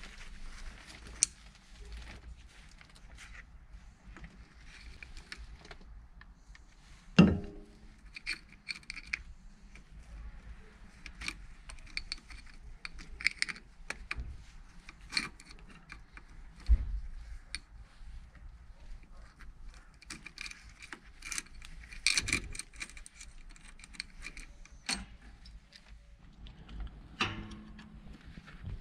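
Metal engine parts and hand tools clinking and clicking during a motorcycle engine teardown, with a few louder knocks, the strongest about seven seconds in.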